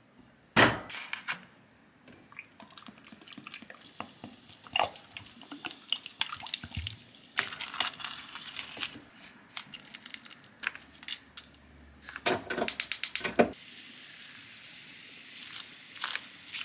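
A heavy piece of raw pork is set down in a cooking pot with one loud knock. Water is then poured in, with splashing and dripping, and scallions and spices are dropped in. Near the end comes a quick run of clicks, then a steady hiss.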